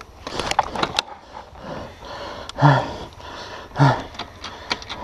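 A rider's effort grunts, two short loud ones about a second apart past the middle, with breathing, while heaving an enduro dirt bike over fallen logs; sticks crack and the bike knocks and clatters throughout.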